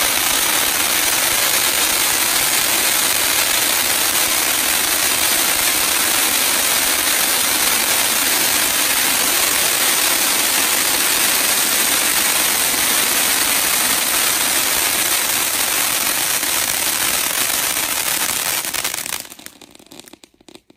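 A 12-inch cone fountain firework spraying sparks with a loud, steady hiss. It dies away abruptly about nineteen seconds in as the fountain burns out.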